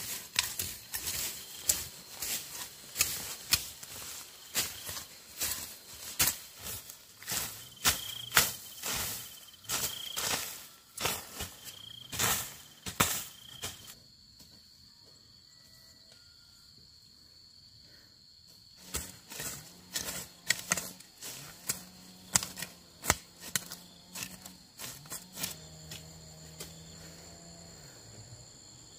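Repeated sharp knocks or strikes, several a second, in two spells with a pause of about five seconds between. Under them runs a steady, high chirping of insects.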